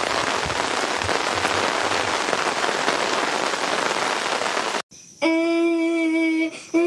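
Steady heavy rain falling, as an even hiss that cuts off abruptly about five seconds in. A steady held note with a bright, buzzy edge then begins, stops briefly near the end, and comes back.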